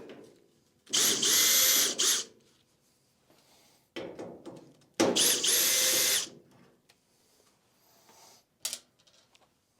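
Power drill-driver spinning out the fasteners holding the dryer's panel: two short runs of about a second each with a steady high whine, about four seconds apart. Light handling knocks and clatter fall between them.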